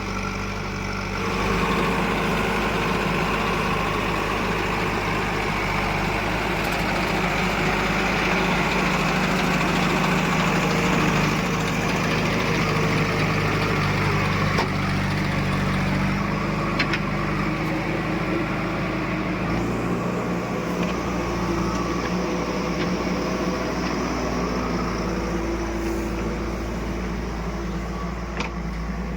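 Heavy farm or construction machine's engine running steadily, picking up in level about a second and a half in.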